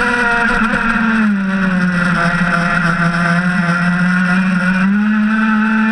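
Zenoah 26PUM two-stroke gasoline engine of an RC race boat running hard at high revs. The revs sag a little over a second in, hold lower for about three seconds, then climb back near the end.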